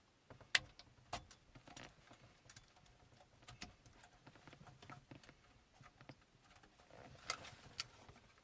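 Faint clicks and rattles of a plastic quad lock wiring-harness connector and cables being handled and plugged into the back of a car radio's metal case. A few sharper clicks stand out, two near the start and two near the end.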